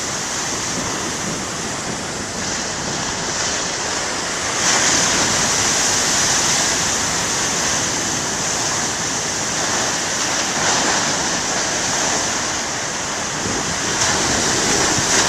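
Big ocean waves breaking on the shore: a continuous wash of surf that swells louder about five seconds in and again near the end as larger waves crash.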